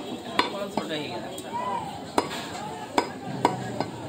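A heavy meat cleaver chopping beef on a wooden log chopping block: about six sharp, unevenly spaced chops.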